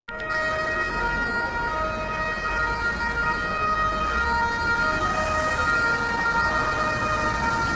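Spanish ambulance siren wailing, cutting in suddenly out of silence, its tones switching back and forth between pitches, over a low vehicle rumble.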